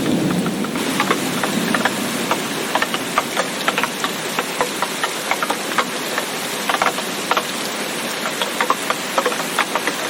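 Steady rain hiss with many drops tapping sharply and irregularly on a hard surface. A low rumble fades away in the first couple of seconds.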